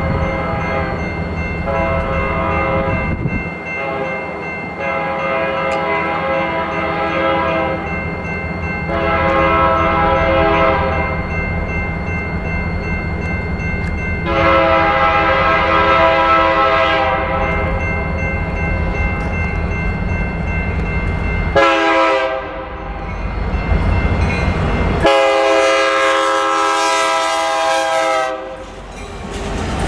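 BNSF SD70MAC diesel locomotive's air horn sounding a series of blasts as the coal train nears a grade crossing, ending with a short blast and then a long one. Under it are the steady ringing of the crossing bell and the low rumble of the diesel engines. Wheels start clattering over the rails as the locomotive passes at the very end.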